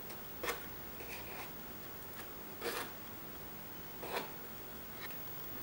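Wooden spoon scraping and smoothing soft mousse inside a stainless steel mousse ring: three short scrapes with a few fainter ones between.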